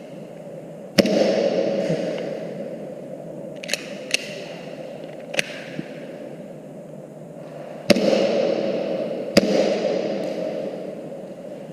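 Airsoft pistol firing three single shots, one about a second in and two near the end about a second and a half apart, with a few lighter clicks between them.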